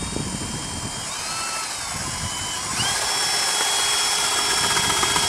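Cordless drill turning an ice auger as it bores into lake ice: a steady motor whine that wavers up and down in pitch over the first few seconds, then climbs and holds a higher, steady pitch from about three seconds in.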